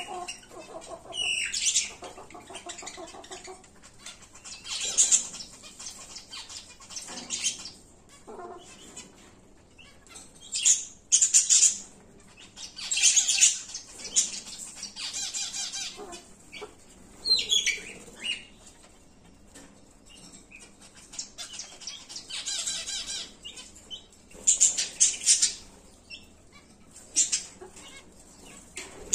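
Zebra finches at a seed bowl: irregular bursts of wing flapping and rustling every few seconds, with a few short falling calls.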